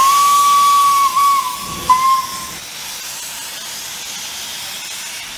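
Steam locomotive whistle: a long blast with a brief break in it, then a short blast about two seconds in, over a steady hiss of escaping steam that carries on after the whistle stops.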